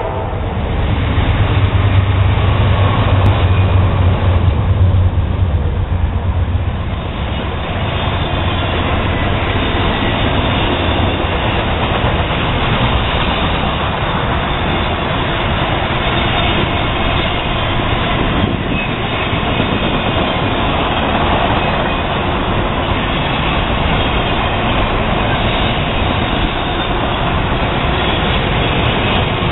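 Norfolk Southern GE Dash 9-40CW (C40-9W) diesel locomotive passing close by, its 16-cylinder engine a strong low drone for the first seven seconds or so. After that comes the steady rolling noise of the intermodal flatcars loaded with highway trailers going by on the rails.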